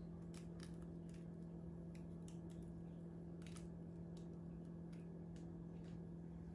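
Faint steady low hum with about a dozen small, irregularly spaced ticks and clicks over it.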